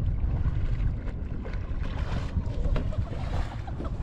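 Wind rumbling on the microphone of a kayak-mounted camera, with water splashing and lapping around the kayak; the splashing swells briefly about halfway through and again near the end.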